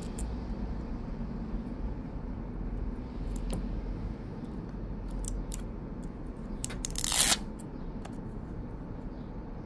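Light clicks of metal tweezers on a phone's frame and small parts, then about seven seconds in a short, loud rip as a clear plastic protective liner is peeled off its adhesive.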